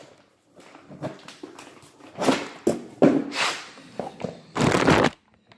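Packaging rustling and crinkling in several loud bursts while car door hinges are lifted out of their wrapping.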